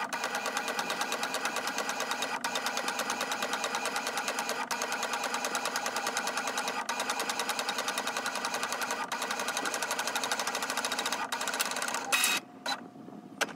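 Ink-tank sublimation inkjet printer printing a page: a fast, even mechanical buzz from the print head shuttling back and forth, broken by a short break about every two seconds. Near the end the printing stops with a few louder clicks.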